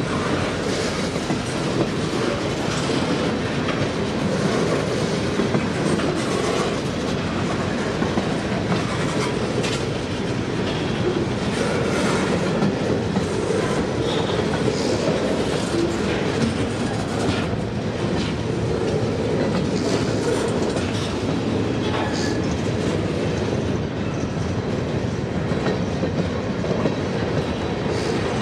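Train running on the rails: a steady rumble with scattered clicks of the wheels over rail joints.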